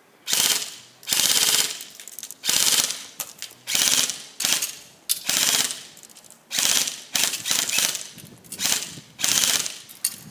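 Battery-powered airsoft M4 CQB electric gun firing about ten short full-auto bursts, roughly one a second, each a quick rattle of shots.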